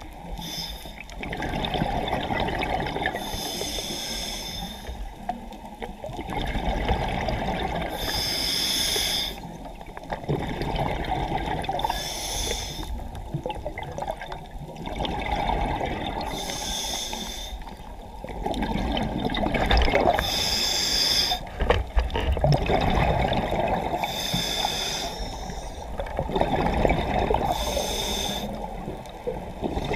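A scuba diver breathing through a regulator underwater, with a hiss on each inhalation about every four seconds alternating with rumbling exhaled bubbles.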